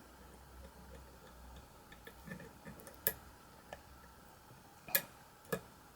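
Small metallic clicks of a lock pick working the pins inside a spool-pinned challenge lock under tension, a few sharp isolated clicks, the loudest about five seconds in.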